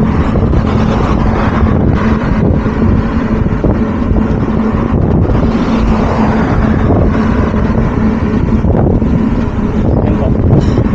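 Wind buffeting the Insta360 One X2 camera's microphone while riding a bicycle along a road, a loud, steady rumble with a constant low hum underneath.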